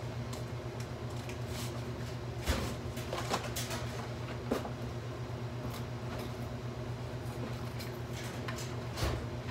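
Sheets of paper being handled and leafed through, with a few short sharper rustles or knocks, over a steady low hum.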